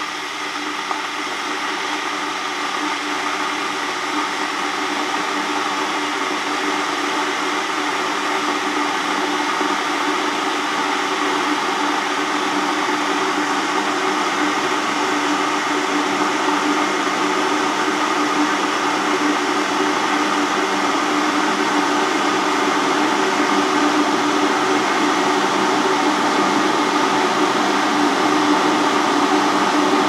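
Breville rapid-boil glass electric kettle of just under 3000 watts heating water toward the boil: a steady rushing hiss that slowly grows louder.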